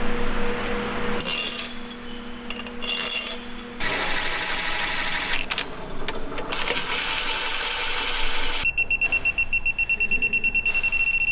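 Hand tools working on an aluminium diesel cylinder head: a steady hum with clicking and rattling of a socket ratchet on the head's fasteners. About three seconds from the end, a rapid high-pitched electronic beeping starts and lasts to the end.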